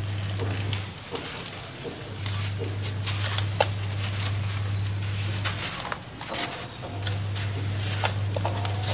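Dry cement-and-ash powder crumbling in the hand and pouring into a tub of loose charcoal-sand powder, with soft rustling and many small crunchy crackles. A low steady hum comes and goes three times.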